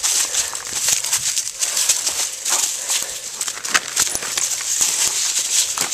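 A Great Pyrenees shaking and tearing at a paper feed sack, the bag crinkling and ripping amid dry leaves crunching underfoot: a steady run of rustles and sharp crackles.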